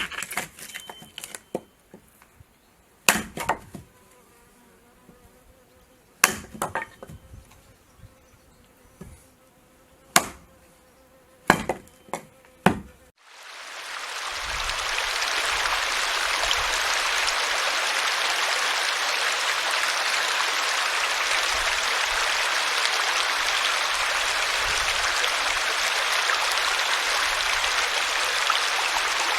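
Irregular sharp cracks and snaps, some in quick clusters. About 13 seconds in, the sound cuts abruptly to a steady, dense hiss that fades in over a couple of seconds and then holds level.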